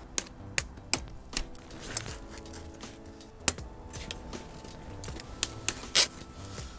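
Plastic zip ties being snipped with cutters: a series of sharp snaps at irregular intervals, several in the first second and a louder one about halfway through.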